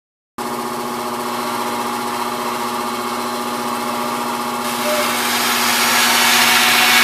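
Bandsaw running with a steady motor hum. A bit past halfway, a louder, harsher hiss builds up as the blade cuts through the thin 24-gauge brass sheet.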